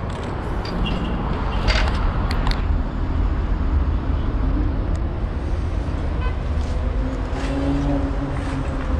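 Steady low rumble of city traffic, with an engine hum rising and falling near the end. A few sharp metallic clanks from an extension ladder come about two seconds in.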